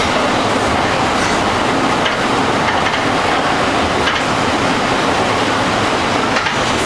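A CSR Qingdao Sifang SFM04 subway train running at speed through a tunnel, heard from inside the car: a steady, loud running noise with a few faint clicks.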